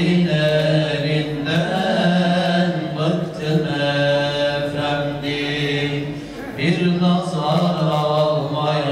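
A solo male voice chanting an Islamic prayer in long, drawn-out melismatic phrases, with brief breaths between them.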